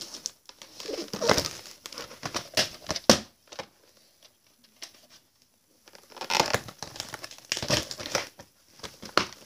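Plastic VHS clamshell case being handled and opened, and the videocassette taken out and turned over: irregular clicks, knocks and rustling. The sounds come in two bursts with a lull of about two seconds in the middle.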